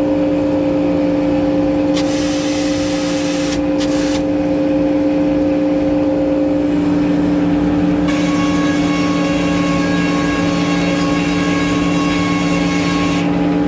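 Sawmill engine running steadily at a constant pitch. Twice a higher rushing noise rises over it: briefly about two seconds in, then longer from about eight seconds to near the end.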